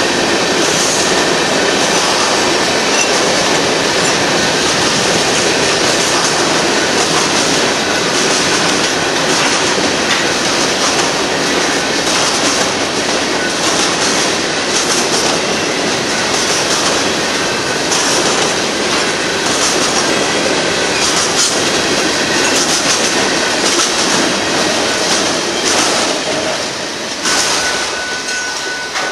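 Freight cars of a Union Pacific manifest train rolling past close by: a loud, steady rumble and rattle of steel wheels on rail, with repeated clicks over the rail joints. Near the end a thin, steady wheel squeal comes in.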